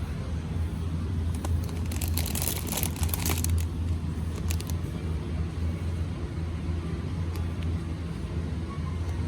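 Steady low rumble of a vehicle in motion, with a burst of hissing noise about two seconds in that lasts around a second and a half.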